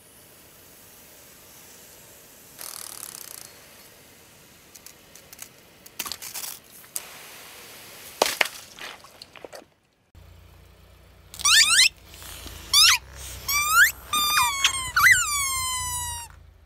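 Car tyre rolling over plastic squeeze bottles of coloured liquid, with crackles and sharp pops as the bottles split and squirt. Then rubber squeaky toys are squashed under the tyre: several loud squeaks that glide down in pitch, the last one drawn out.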